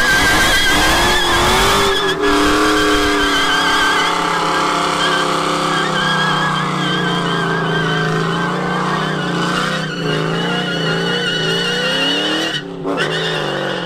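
Car doing a burnout: the spinning rear tyres screech in a steady, wavering high squeal over the engine held at high revs, with a brief break near the end.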